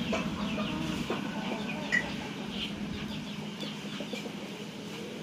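Faint bird calls, scattered short chirps, with one clearer note about two seconds in.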